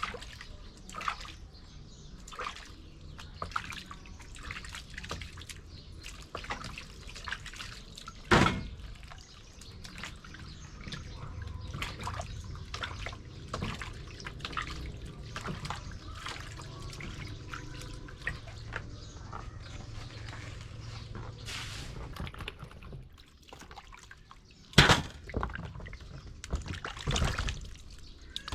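Water dripping and splashing in a kitchen, with many small scattered splashes and a few sharp, louder knocks about a third of the way in and near the end.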